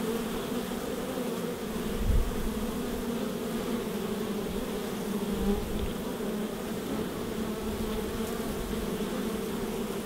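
A mass of honeybees buzzing: a steady, dense hum of many wings. A brief low rumble about two seconds in.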